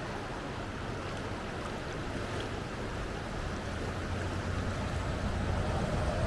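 Rushing river water: a steady wash of noise that grows slightly louder near the end.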